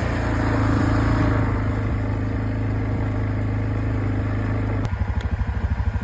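Four-wheeler (ATV) engine running steadily under way, then about five seconds in dropping to a lumpy, pulsing idle as the machine slows or stops, with a couple of light clicks.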